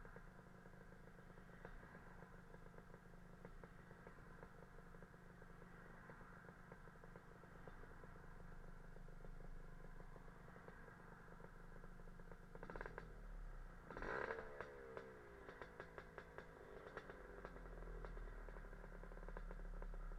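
Lambretta scooter's Casa Performance SSR265 two-stroke engine idling faintly in stopped traffic. About two-thirds of the way through there is a knock and a short rev that falls back to idle.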